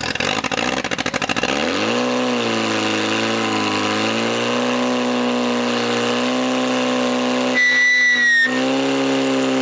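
Portable fire pump's engine revving up over the first couple of seconds and then held at high revs, wavering slightly as it drives water through the hose lines. A high whistle sounds for about a second near the end.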